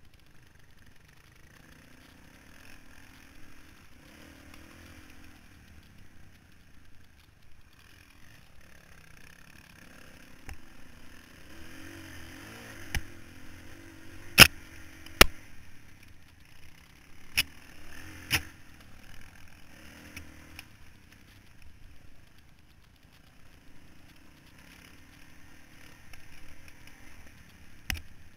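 Four-stroke single-cylinder dirt bike engine revving up and easing off as the rider works the throttle on a rough trail. Several sharp knocks about halfway through, the loudest sounds, come as the bike jolts over the bumps.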